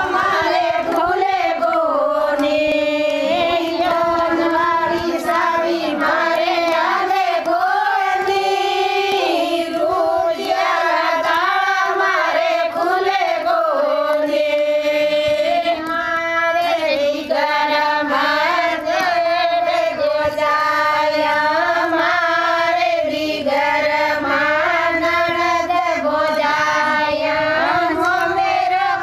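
A group of women singing a Hindu devotional bhajan together, kirtan-style, in high voices carrying one continuous melody.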